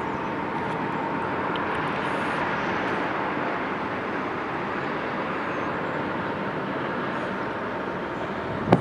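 Steady, even rumble and hiss of heavy mining machinery working in an open pit, with a faint steady whine running through it. A single sharp click comes just at the end.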